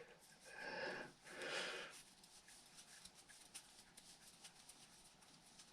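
Two short breathy noises in the first two seconds, then faint scattered clicks from small hand work on an RC shock absorber with side cutters.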